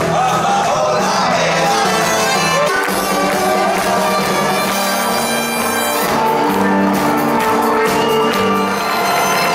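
Rock band playing live, heard from within the audience, with long held notes over drums and guitars.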